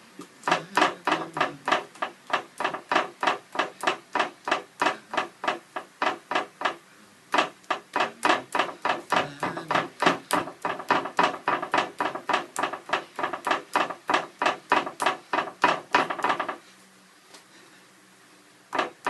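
Quick, even tapping of a paint-loaded tool being stabbed onto a round stretched canvas, about four to five taps a second. The tapping breaks off briefly about seven seconds in and stops a few seconds before the end.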